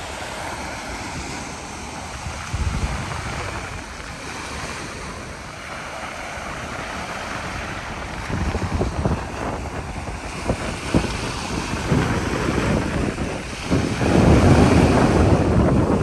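Small sea waves breaking and washing up a sandy beach, with wind rumbling on the microphone. The surf grows louder about halfway through and is loudest near the end.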